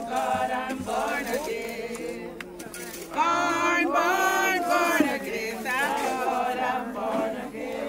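A group of mourners singing a hymn together without accompaniment, swelling louder about three seconds in.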